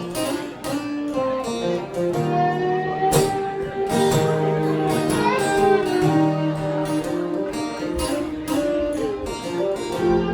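Live rock band playing an instrumental passage: an electric guitar lead with bent, wavering sustained notes over bass and a steady drum beat.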